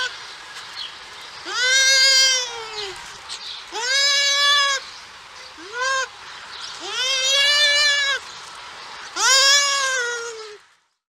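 An animal giving a series of drawn-out, bleat-like cries, five in all, each rising and then sliding down in pitch, with short gaps between them; the third is much shorter than the rest.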